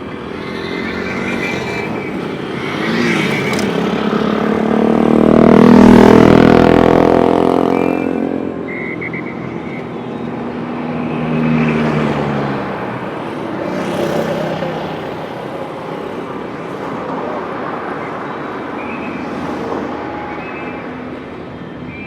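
Motor vehicles passing along a city street. The loudest pass-by, with a rising then falling engine sound, comes about six seconds in, and smaller ones follow around twelve and fourteen seconds. A few short high tones sound now and then over the steady street noise.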